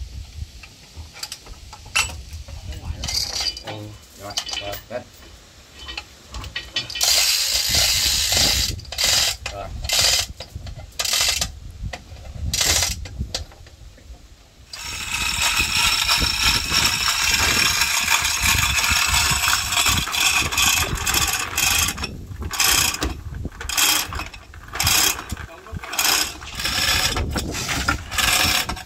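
Hand chain hoist being hauled: its chain rattles through the block with ratchet clicking. It runs in long unbroken spells, the longest starting about halfway through, between runs of short separate pulls.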